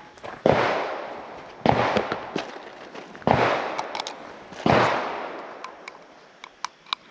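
Four gunshots, roughly a second and a half apart, each with a long echoing tail.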